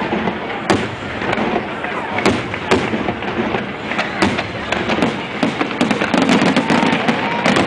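Fireworks display: aerial shells bursting in quick succession, the bangs coming thicker and faster in the last couple of seconds, over the murmur of a crowd.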